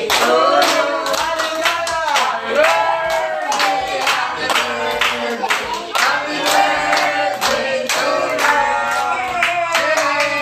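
A group of voices singing together while hands clap along in a steady rhythm.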